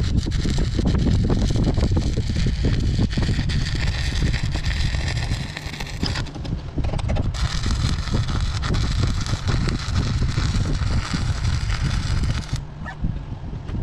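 Welding arc crackling steadily as a patch plate is welded onto a truck fender, with a brief dip about halfway and the arc stopping about a second before the end.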